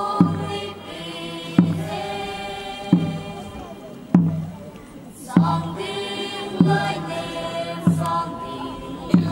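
Traditional Kuki folk dance song: voices chanting in unison in long held notes over a deep drum beat struck about every second and a quarter.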